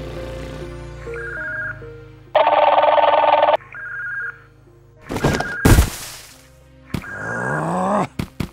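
Background music with a cartoon telephone-ringing sound effect: short bursts of high beeping repeat several times. A loud harsh buzz comes about two and a half seconds in, a couple of heavy thuds follow around five seconds in, and a rising glide comes near the end.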